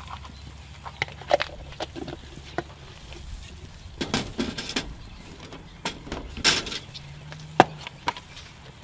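Ground beef and diced onion cooking in a cast-iron skillet on a grill: scattered crackles and clicks, with a few short hisses about 4 and 6.5 seconds in and one sharp click near the end.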